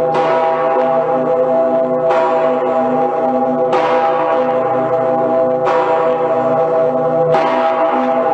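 St. Peter's Bell (Petersglocke) of Cologne Cathedral swinging alone, its clapper striking five times at intervals of roughly two seconds. Its deep partials hum on without a break between strokes.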